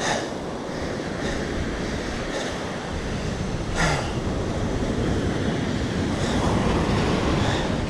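Surf breaking and washing up a sandy beach, with wind rumbling on the microphone; a single brief click about four seconds in.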